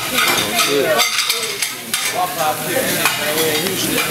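Food sizzling on a diner's flat-top griddle, with indistinct voices and a little clatter mixed in.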